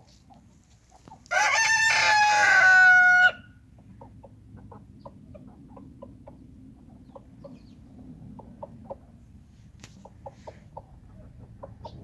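A rooster crows once, loudly, for about two seconds starting a second in, the last note held and dipping slightly at the end. After it, hens cluck softly in short, scattered notes, a few a second.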